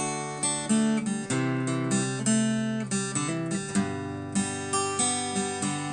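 Instrumental intro of a blues song on acoustic guitar: chords and notes plucked in a steady rhythm, each ringing out and fading before the next, with no vocals yet.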